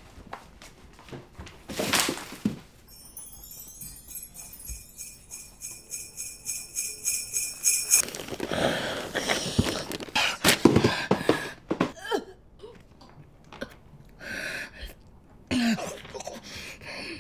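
Sleigh bells jingling in a steady rhythm for about five seconds, starting a few seconds in, followed by scattered short, irregular sounds.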